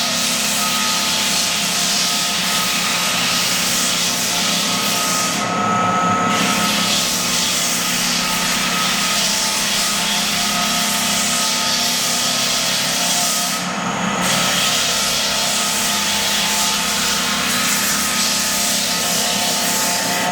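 Belt floor sander with a built-in dust vacuum running steadily as it sands old heartwood pine floorboards: a motor hum under a dense, loud sanding hiss. The hiss drops out briefly a few times while the motor keeps running.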